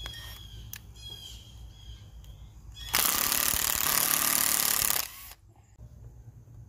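Milwaukee 12 V cordless drill spinning a wire wheel against tree bark to strip off spray paint: a loud burst of wire-wheel scrubbing over the motor's whine, starting about three seconds in and stopping suddenly about two seconds later.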